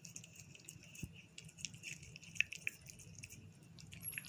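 Cats chewing and lapping at soft, moist food of fish and bread soaked in fish broth: faint, irregular wet smacks and clicks, with one slightly louder click about two and a half seconds in.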